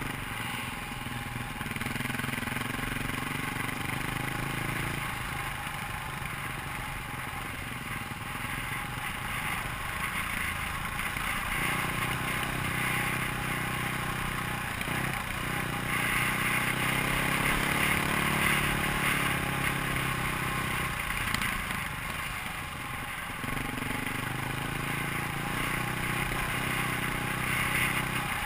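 KTM dirt bike engine running under way, its revs rising and falling several times as the rider works the throttle, over a steady rushing hiss.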